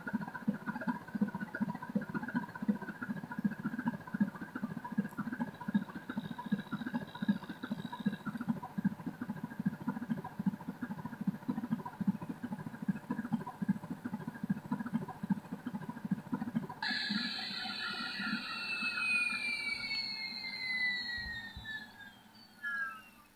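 MRRC helicopter sound module playing a UH-1 Huey sample through a small speaker: a fast rhythmic rotor chop over a steady turbine whine. About two-thirds of the way through, the chop stops and the turbine whine falls in pitch and fades, as in an engine shutdown.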